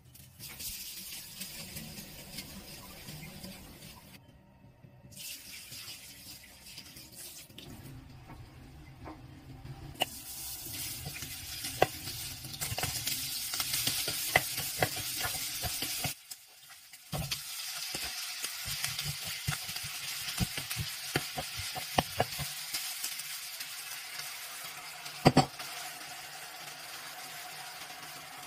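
Pork pieces sizzling in an electric hot pot while a wooden spatula stirs them, with scattered sharp knocks of the spatula against the pot. The hiss breaks off briefly a few times.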